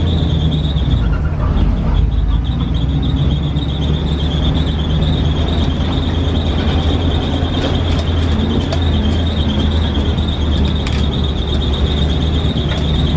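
Pesero microbus heard from inside while riding: steady engine and road rumble with a constant high-pitched whine and rattling.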